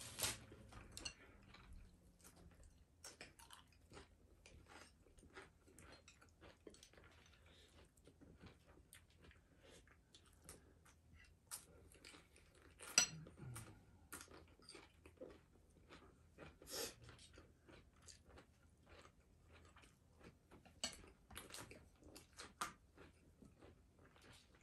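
People eating at the table: faint chewing and scattered small clicks of chopsticks and a spoon against bowls and dishes, with a few louder clicks.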